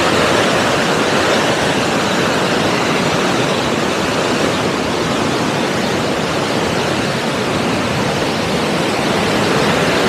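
Turbulent river rushing, a steady even noise of fast white water.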